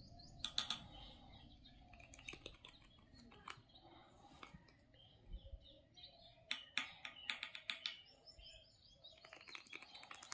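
Baby Alexandrine parakeet making begging chirps while it is hand-fed with a dropper. The chirps are soft and high, broken by clusters of rapid clicky calls about half a second in, again around seven seconds, and near the end.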